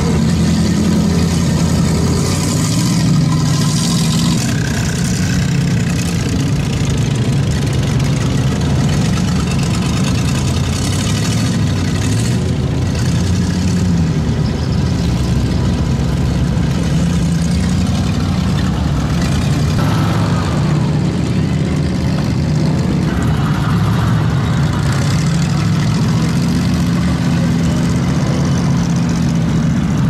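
Mud-bogging vehicle engines, a side-by-side UTV and then a GMC pickup truck on big mud tires, running and revving through a flooded mud pit. The engine note rises and falls over the spray of water and mud.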